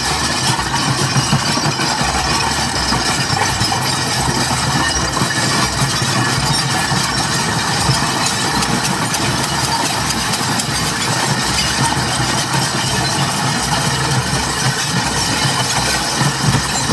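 Live experimental noise performance: a loud, dense, steady wash of noise over a pulsing low rumble.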